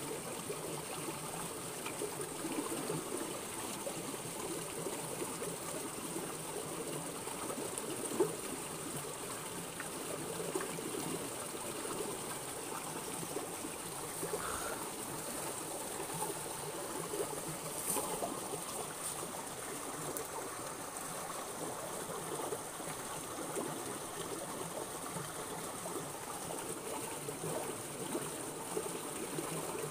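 Small rocky stream flowing and trickling steadily over stones, with one brief sharp click about eight seconds in.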